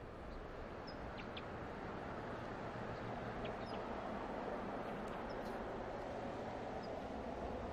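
Faint, steady outdoor rumble and hiss with a few brief, high chirps from small birds scattered through it.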